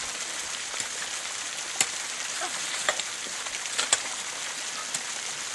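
Scattered sharp clicks and knocks of stones and bricks being handled, over a steady hiss. The loudest clicks come about two, three and four seconds in.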